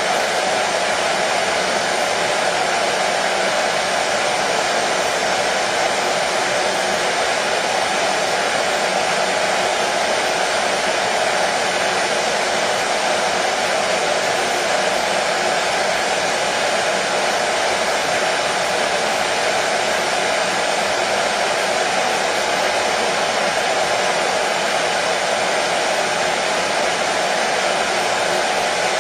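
Hair dryer running steadily: a constant whooshing fan noise with a faint motor hum, unchanging throughout.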